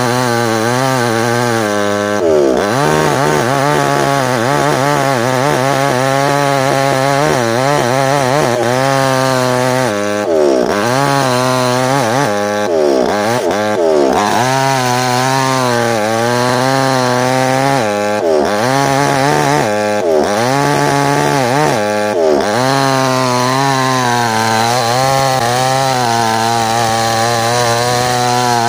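Small chainsaw running near full throttle, cutting into hard ironwood. Its engine note drops sharply and picks back up several times as the chain bogs in the dense wood.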